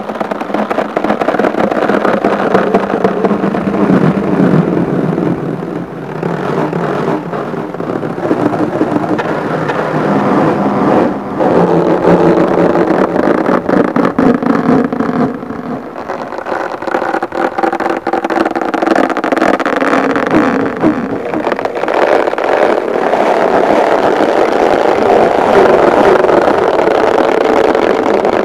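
Fingers rubbing and tapping on an inflated rubber balloon held right against a microphone: a continuous, loud, engine-like rubbery rumble with many fine taps and faint squeaky tones.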